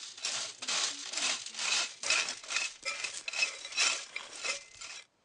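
Mussel shells clinking and scraping in a quick series of short strokes, about three a second, that stops suddenly near the end.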